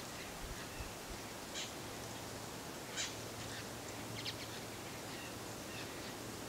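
Soft outdoor ambience: a steady faint hiss with a few short, high bird chirps scattered through it, the clearest about one and a half, three and four seconds in.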